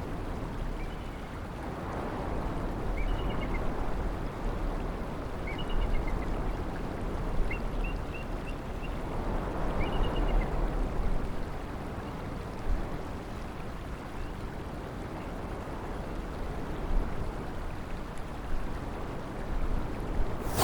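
Steady rushing of flowing water, with a few short, high bird chirps scattered through the first half. A brief loud burst comes right at the end.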